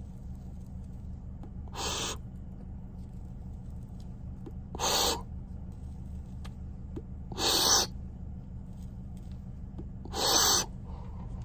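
A person blowing out smoke in four short, breathy puffs about two and a half seconds apart, the later ones louder, over a steady low hum inside a car.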